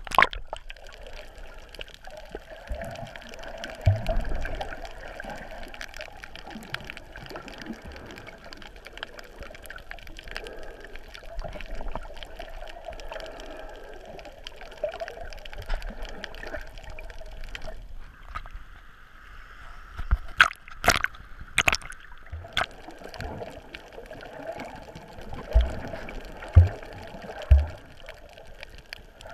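Water gurgling and sloshing around a camera held underwater, heard muffled through its waterproof case. There is a cluster of sharp clicks around twenty seconds in and three low knocks near the end.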